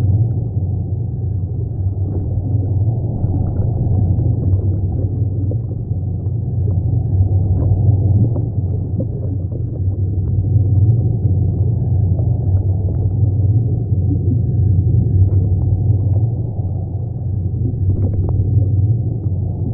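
Steady, muffled low rumble of a reef aquarium's water circulation and pump, with a few faint ticks over it.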